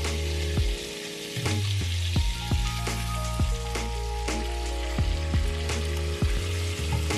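Prawns, corn and sausage sizzling in hot sauce in a steel pot as they are stirred, over background music with a steady beat.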